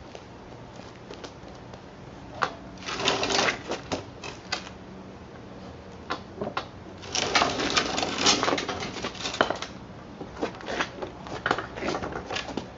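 Wooden pallet boards knocking and clattering as they are handled and worked loose, in a short flurry about three seconds in and a longer, louder one from about seven to nine and a half seconds, with scattered single knocks between.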